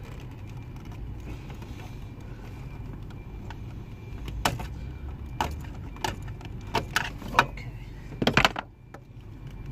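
Scattered clicks, knocks and rattles of plastic trim and wiring connectors being handled and pried around a car's dashboard fuse box, with the loudest cluster near the end. A steady low hum runs underneath.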